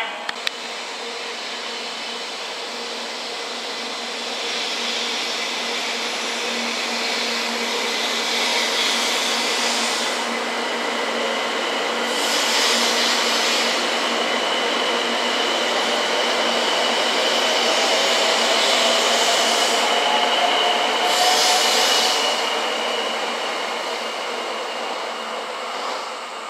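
JR West 700 Series RailStar shinkansen pulling out and accelerating: a traction-motor whine rising slowly in pitch over the running noise, which builds to its loudest about three quarters of the way in, then fades as the train leaves.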